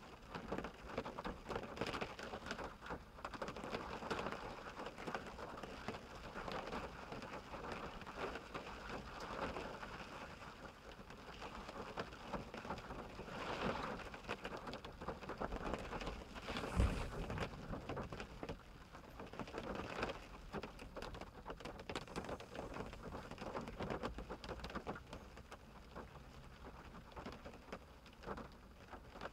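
Steady rain falling on a minivan's windshield and roof, heard from inside the cabin as a dense spatter of drops that swells and eases. Roughly two-thirds of the way through there is one sharp, deep thud, the loudest moment.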